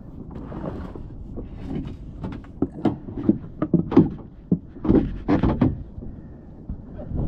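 A run of irregular knocks and clunks on a plastic fishing kayak and its gear, bunched between about three and six seconds in, over a low wind rumble on the microphone.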